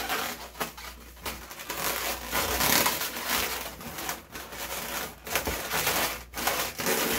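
Inflated 260 latex modelling balloon being twisted and its loops pulled through one another, the latex rubbing against itself and against the hands with an uneven crinkling scrape that swells and dips with each grip and pull.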